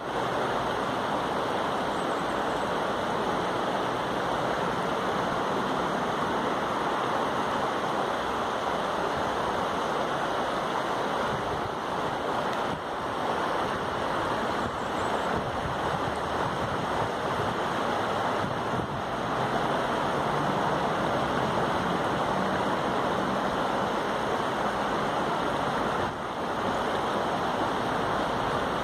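Shallow river water running steadily over a flat rock bed, an even rushing with no breaks.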